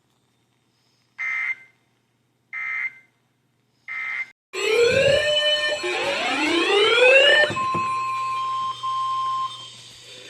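Three short bursts of Emergency Alert System digital data tones, evenly spaced, marking the end of an alert message. They are followed by a loud alarm-like sound of rising pitch sweeps and then a steady single tone lasting about two seconds.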